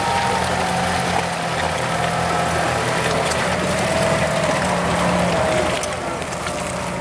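Off-road vehicle engine running at a steady speed, with a faint wavering whine above it; the engine note eases off about six seconds in.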